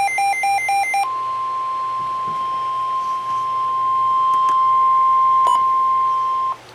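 Weather radio alert: a rapid electronic beeping stops about a second in. It gives way to the NOAA Weather Radio 1050 Hz warning alarm tone, one long steady tone held for about five and a half seconds that cuts off abruptly near the end. The tone signals that a warning broadcast is about to follow.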